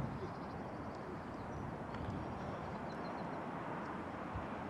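Steady outdoor background noise, a constant hiss, with a few faint high bird chirps now and then.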